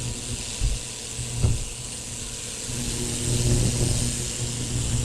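Ultrasonic cleaner running with tool parts soaking in its tank: a steady low hum with a hiss from the water. Two faint knocks come in the first two seconds.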